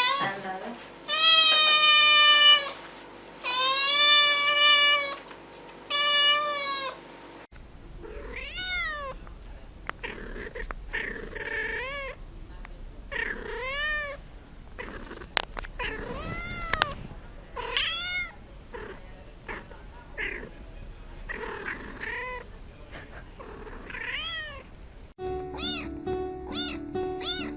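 Domestic cats meowing: first three long, loud meows, then, after a cut, a run of shorter, quieter rising-and-falling meows about once a second. Near the end, short meows over music.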